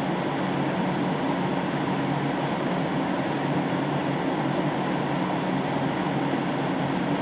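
Steady rush of a car's heater blower fan with the hum of the Ford Focus's 1.0-litre three-cylinder engine idling, heard inside the cabin while the car warms up from a cold start.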